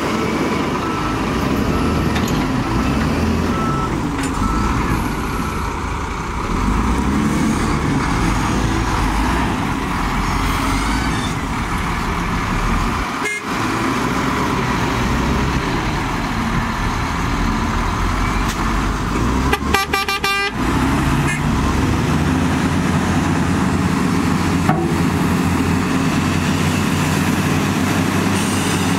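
Heavy diesel engines of two wheel loaders and a loaded dump truck running hard under load, straining to free the truck stuck in sand. A short horn toot sounds about two-thirds of the way through.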